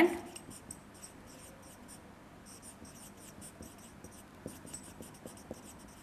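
Marker squeaking on a whiteboard in short quick strokes as a word is written, with a few soft ticks in the second half.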